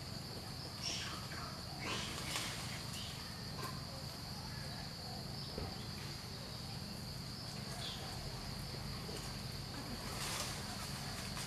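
Outdoor ambience: a steady high-pitched insect drone over a low steady rumble, with a few brief clicks or rustles about two seconds in and again near the end.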